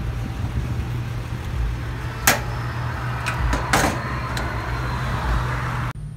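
A gas pump hums steadily while its fuel nozzle is handled: one sharp metal clack a little past two seconds in, then a short rattle of clanks near four seconds as the nozzle is hung back on the pump.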